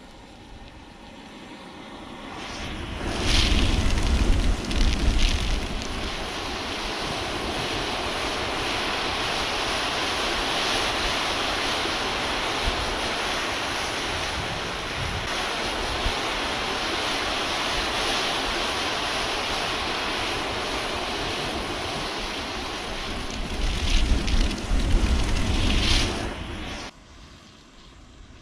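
Thousands of matches in a match-built volcano flaring at once with a loud, steady rushing roar. It swells about two seconds in, is loudest with rough low rumbling around three to five seconds in and again around twenty-four to twenty-six seconds, and cuts off suddenly near the end.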